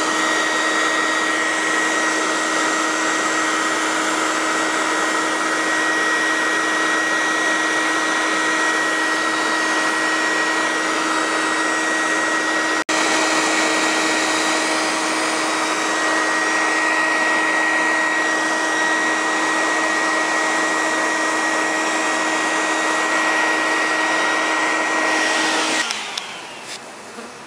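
Bee vacuum running steadily, its motor giving a constant hum with a high whine over the rush of air through the hose as it sucks up bees. It cuts out for an instant about halfway through and shuts off near the end.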